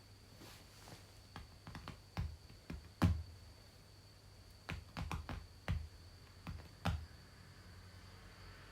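A string of light, irregular clicks and taps, about a dozen, the loudest about three seconds in, over a faint steady high-pitched whine.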